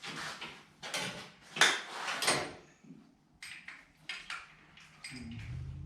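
Hand tools and loose metal engine parts clinking and clanking while an engine is being taken apart. There is a run of sharp knocks with the loudest about a second and a half in, then lighter scattered clicks.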